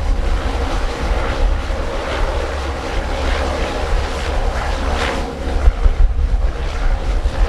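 Jet airliner engines at takeoff power, a steady noise carrying several held tones, under heavy wind buffeting on the microphone.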